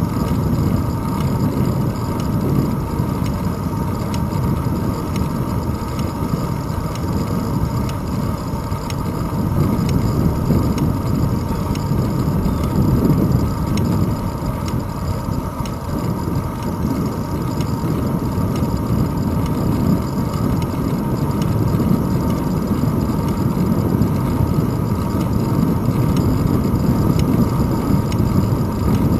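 Wind and road rumble picked up by a bicycle's handlebar-mounted GoPro Hero 2 as the bike rolls along a paved path: a steady low rush with a faint steady whine above it.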